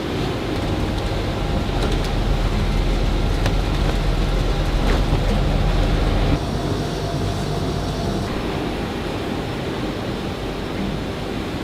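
Industrial laundry machinery running: a steady mechanical rumble and hiss with faint scattered clicks, the sound shifting abruptly about six seconds in.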